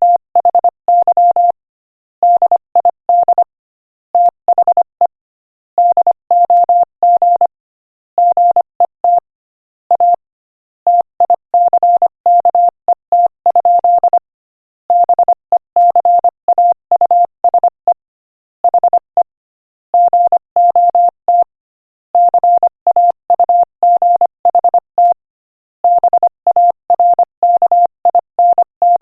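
Morse code sent at 25 words per minute as a single steady mid-pitched tone keyed on and off in dots and dashes, with brief pauses between words.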